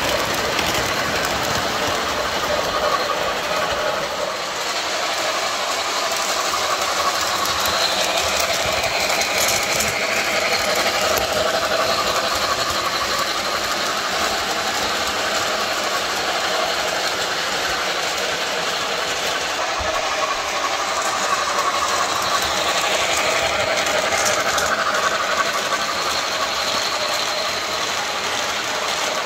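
MTH RailKing Commodore Vanderbilt O-gauge model train running on three-rail track, its wheels and passenger cars making a steady mechanical rattle.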